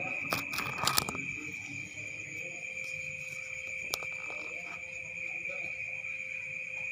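Crickets chirring steadily at night, one high continuous tone. A few sharp clicks or knocks come in the first second, and another single click comes about four seconds in.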